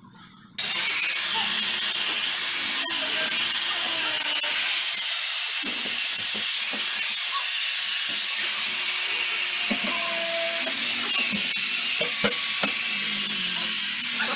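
Handheld corded power tool running steadily, starting abruptly about half a second in and giving a loud, even, high rushing noise.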